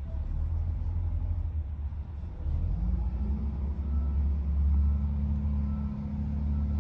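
SDLG wheel loader's diesel engine running with a low rumble, revving up about halfway through as it tips its raised bucket into a dump truck, then easing slightly near the end.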